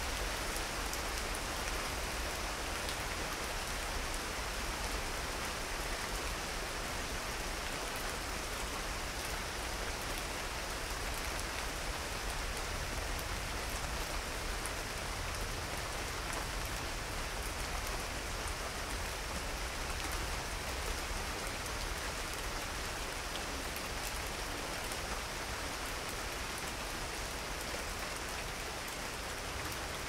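Thunderstorm rain falling steadily as an even hiss, with scattered fine drop ticks and a steady low rumble underneath.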